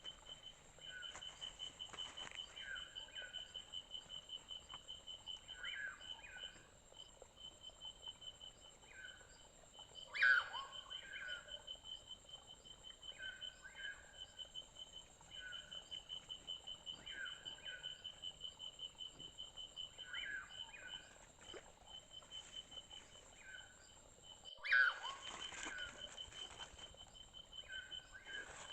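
Forest sounds: an insect's fast, steady pulsing trill, and a bird repeating a short two-part call every second or so. Two louder, sudden sounds break in, about ten seconds in and again near the end.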